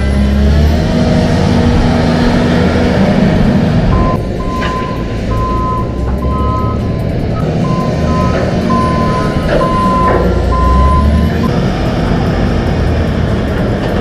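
Volvo L70 wheel loader's diesel engine running, swelling and easing as it manoeuvres with a loaded bucket. Its reversing alarm beeps repeatedly from about four seconds in until near the end.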